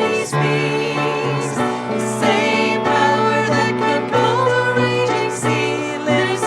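Christian worship song played with voices singing over instruments, with a steady beat.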